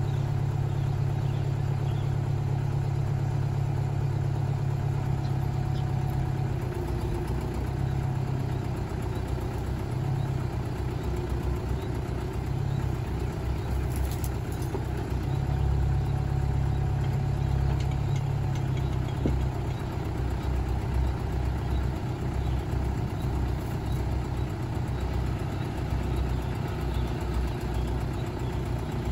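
Crane truck's engine running steadily while its truck-mounted boom crane hoists a concrete foundation pile, the engine note shifting a few times as the crane works.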